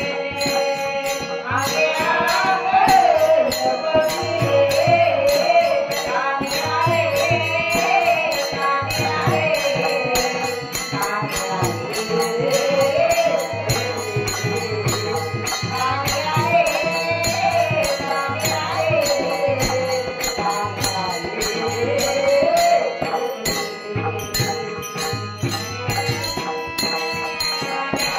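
Marathi devotional bhajan (a gaulan) sung with a woman's lead voice, over a steady drum beat and the constant jingle of small hand cymbals.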